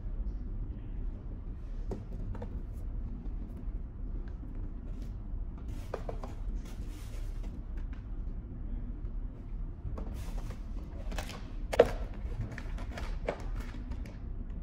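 Handling noise as items come out of a padded kit case: plastic bags and bubble wrap crinkling, with light clicks and knocks, over a steady low hum. One sharper knock comes a little past two-thirds of the way through.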